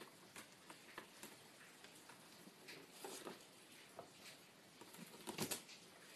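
Kittens' claws and paws scrabbling on a woven wicker basket: faint, scattered light scratches and taps, with a louder flurry of scratching a little after five seconds in.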